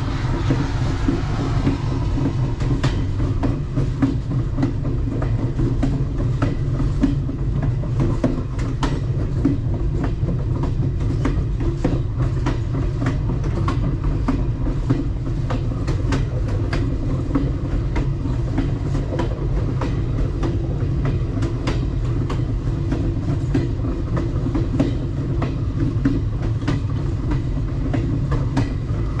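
Alaska Railroad passenger train running along the track: a steady low rumble of the cars with many irregular sharp clicks of the wheels over the rails. A brighter hiss fades away in the first couple of seconds.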